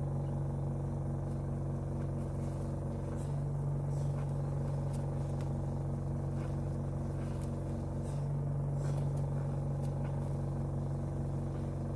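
Medical oxygen concentrator's compressor running with a steady low hum, feeding oxygen to a propane-oxygen welding torch that is in use.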